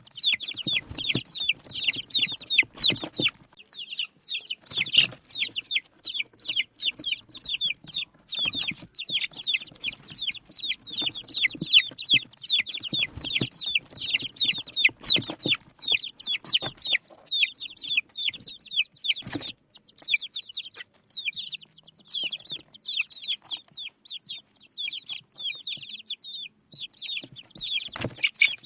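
A group of baby chicks peeping continuously, many short, high, falling chirps overlapping several times a second. A few sharp knocks cut through now and then.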